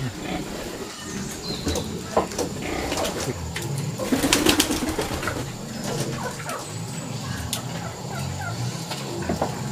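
Chickens clucking low and on and off, with scattered sharp clicks and crunches.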